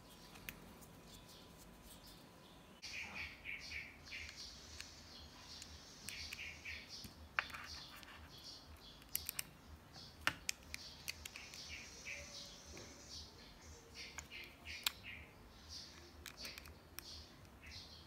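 Small birds chirping in quick clusters of short, high notes, with a few sharp clicks from the watch and its woven band being handled.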